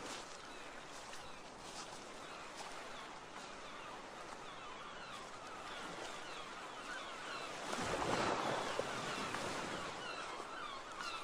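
Steady outdoor rushing noise with many faint, short bird calls throughout. A louder rush of noise swells about eight seconds in.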